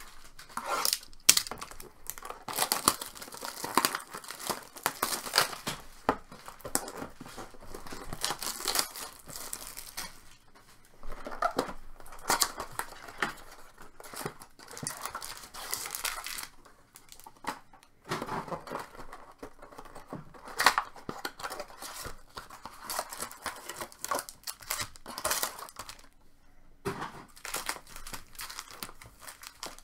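Trading card pack wrappers and packaging being torn open and crinkled by hand, in irregular rustling, crackling spells with sharp clicks.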